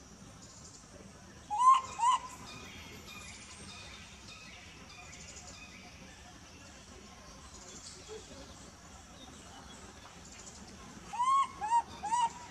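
Baby long-tailed macaque giving short arched coo calls: two close together about a second and a half in, then three more in quick succession near the end.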